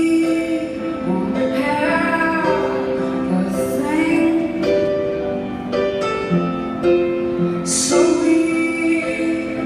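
Live performance of a slow song: sustained instrumental chords under a woman's voice singing long notes without clear words.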